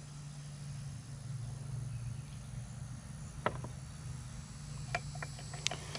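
A few light clicks and taps of small metal engine parts being handled during teardown, over a steady low hum.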